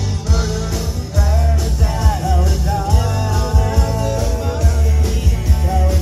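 Live tribute band playing a rock song, with a pulsing bass and drum beat under a wavering lead melody.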